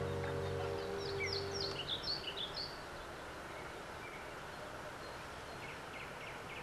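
Small birds chirping: a quick run of falling chirps in the first few seconds, then a few short chirps near the end, over a steady hiss.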